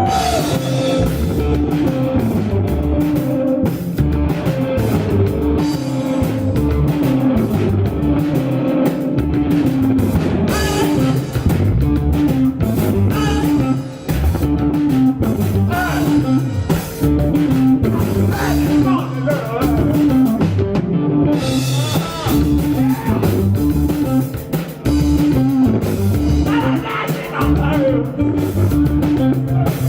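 Rock music: a band playing with electric guitar, bass guitar and drum kit, a repeating bass line under it, and some singing.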